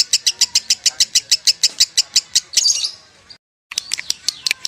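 Lovebird chattering in a long, rapid 'konslet' ngekek trill of sharp high chirps, about ten a second. It breaks off about three seconds in, with a brief dead gap, then starts again more faintly.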